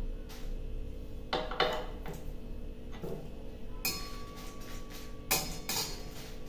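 A cooking utensil knocking and clinking against a pan as dry red chillies are stirred in mustard oil: a series of separate knocks about a second apart, one ringing on briefly about four seconds in.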